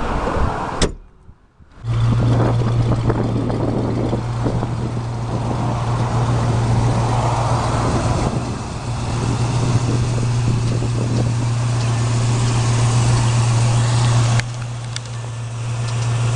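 1973 Chevrolet Camaro's engine running steadily, a constant low hum with noise above it, coming in after a short quiet gap about two seconds in and dipping abruptly near the end.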